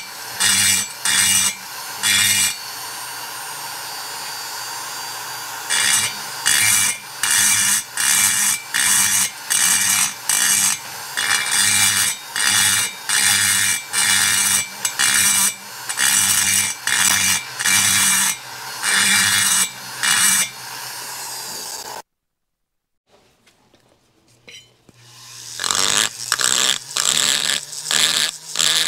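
Small rotary grinder with a stone point grinding out a port in the liner of a two-stroke motorcycle cylinder. It works in short strokes, getting louder and softer about twice a second over the motor's steady whine, with one stretch of about three seconds of continuous grinding. About two-thirds of the way in the sound cuts off abruptly for about three seconds, then the grinder winds back up and the strokes resume.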